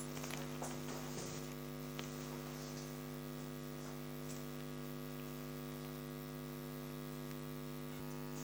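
Steady electrical hum, with a few faint ticks.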